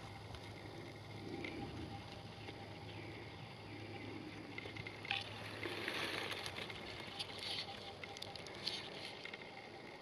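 Minelab GPX metal detector's search coil swept back and forth through dry fallen leaves, a soft rustling swish every couple of seconds, over a faint steady hum.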